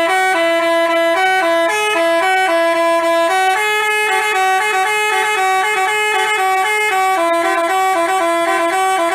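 Basuri-type telolet bus horn playing a melody: a run of quickly changing horn notes, two tones sounding together, with no pause.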